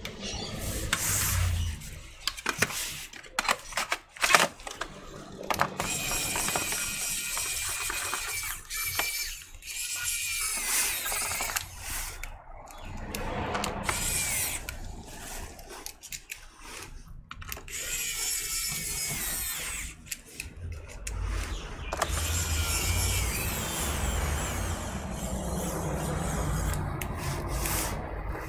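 Small electric screwdriver driving the screws of the laptop's bottom cover, its motor whining in a series of short runs with pauses between them. Sharp handling clicks come in the first few seconds.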